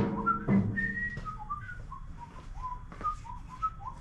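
A person whistling a casual tune in short, swooping notes, with a low thump about half a second in.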